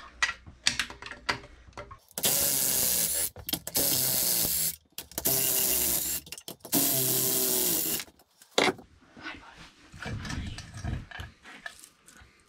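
Red cordless power tool run in four bursts of about a second each, spinning out the intake manifold bolts on a Kawasaki 1500 four-stroke jet ski engine, its motor note dropping as each burst ends. Light clicks of a hand wrench come before, and metal knocks as the manifold is lifted off near the end.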